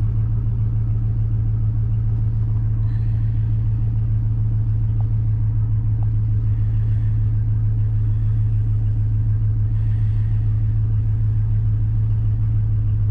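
Dodge Ram 1500 pickup engine idling steadily with a low, even hum, while its newly fitted alternator charges.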